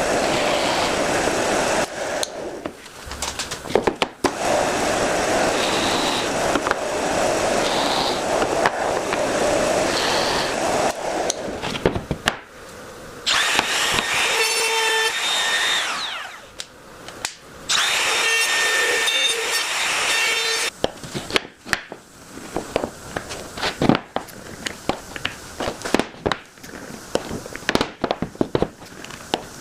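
Woodworking power tools running on wood in several bursts, one stretch steady and noisy and two shorter ones with a whining tone, followed by a run of sharp knocks and clicks of hand work on wood.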